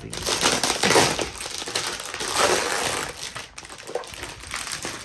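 A ring binder being handled close to the microphone: a run of rustling and scraping, loudest in the first three seconds and then tapering off.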